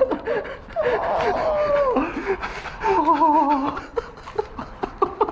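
A man's voice crying out in a long falling wail, then laughing in a wavering, shaking tone, after being hit on the fingers by an airsoft BB.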